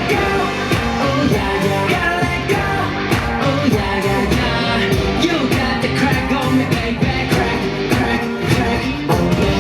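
Loud K-pop dance track with a steady driving beat and singing over it.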